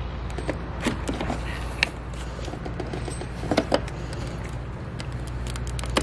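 Plastic trim clips being pried with a trim tool, giving several sharp clicks and snaps, the loudest cluster about three and a half seconds in, over a steady low hum.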